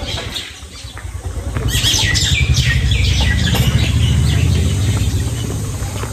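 Birds chirping over a loud low rumble; the chirps are busiest a couple of seconds in.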